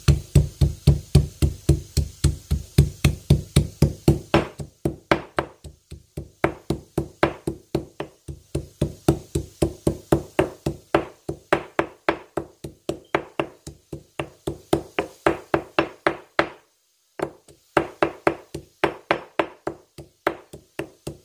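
Fresh ginger being pounded in a mortar and pestle: steady, even strikes about three a second, with a brief pause about three-quarters through.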